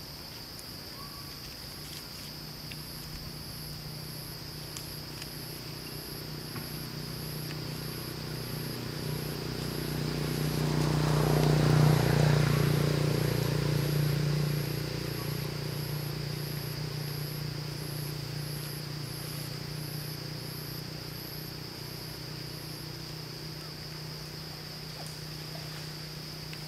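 Insects droning steadily, with a high chirp repeating about twice a second that stops near the end. Under them a low engine hum grows louder to a peak about halfway through and fades away again.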